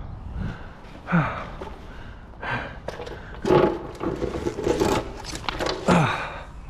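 Metal scrap being pulled and scraped off a magnet-fishing magnet by hand, in a series of separate rubs and knocks, with a few short huffs of breath.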